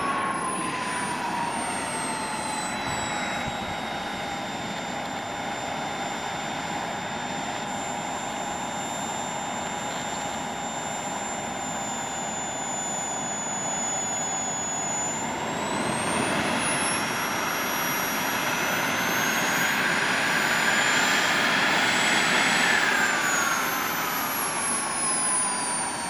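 JetsMunt 140 model gas turbine in a radio-controlled jet whining steadily. Its pitch sinks a little at first and holds level, climbs and grows louder for several seconds past the middle, then falls away again near the end.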